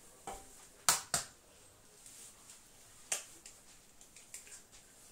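An egg being cracked: a few sharp taps on the shell, the loudest two close together about a second in and another about three seconds in.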